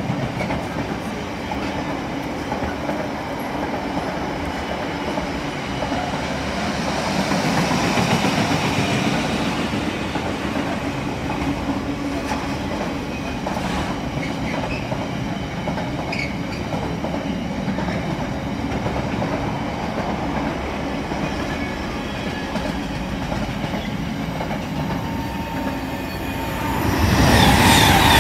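Container freight wagons rolling steadily past, their wheels clattering over the rails. About a second before the end, a Pendolino electric passenger train rushes past on a nearer track, much louder and brighter.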